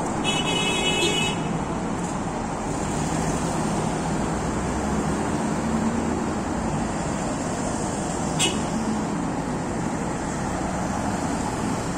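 Steady city road traffic: cars driving past with a continuous noise of engines and tyres on the road. A brief high-pitched tone sounds about a second in, and a short sharp click comes about eight and a half seconds in.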